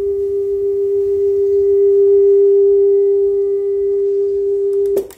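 Steady test tone played back from a test cassette on an Akai GXC-41D cassette deck, cutting off with a few clicks about five seconds in. It is a clean single tone, the sign that the deck's playback is correct.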